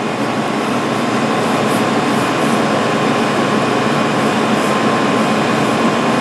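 Steady, even rushing noise of a room's air-handling system, with a faint steady tone running through it.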